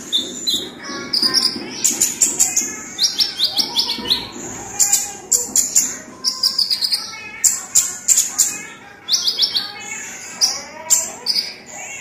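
Male crimson sunbird (kolibri ninja) singing its 'isian cabean' song: flowerpecker-style calls copied into its own song. The song comes in repeated bursts of rapid, sharp high ticks and short runs of quick falling notes, with brief gaps between them.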